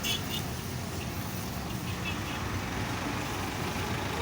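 A motor vehicle engine running steadily at low revs.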